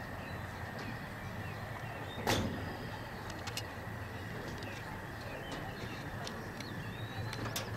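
Open-air ambience: a steady background hiss with scattered faint bird chirps, and one brief sharp sound about two seconds in.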